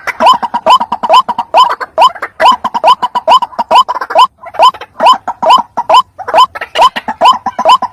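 White-breasted waterhen (ruak-ruak) calling: a rapid, unbroken series of short, loud notes, each sliding upward in pitch, about three a second, with further notes interleaved.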